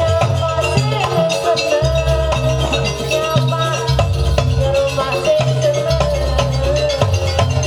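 Jaranan ensemble music playing: drum and gong-like percussion with a steady beat under a wavering, ornamented melody line.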